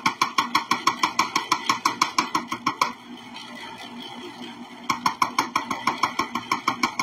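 A measuring cup tapped rapidly against the rim of an ice cream maker's lid opening, about six taps a second, to knock in cocoa powder. The taps stop for about two seconds in the middle, leaving the steady hum of the machine churning.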